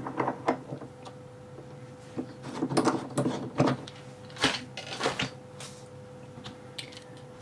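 Irregular small clicks and clatter of metal lock-picking tools and a lock cylinder being handled and set down, with a cluster of knocks about halfway through.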